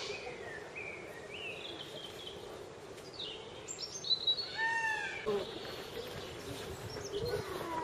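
Birds calling: a few short rising whistled notes in the first couple of seconds, then a quick run of arched, repeated calls about four to five seconds in.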